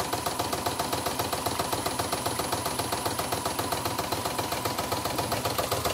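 Portable computerized embroidery machine stitching, its needle mechanism running in a rapid, even rhythm. It is being test-run after its motor, shaft and bushing were replaced.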